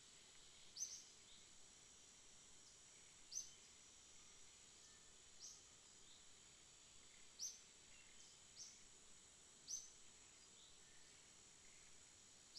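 Faint outdoor forest ambience: a steady high insect drone, with short, sharp, high chirps every couple of seconds.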